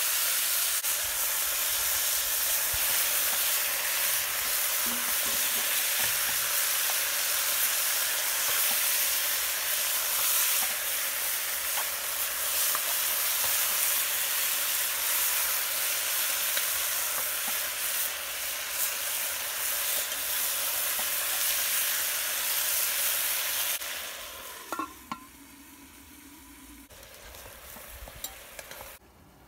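Turkey neck pieces sizzling and frying in a metal pot as a metal spoon stirs them, at the browning stage of a brown stew. The steady sizzle drops away sharply about four-fifths of the way through, leaving a few faint clicks.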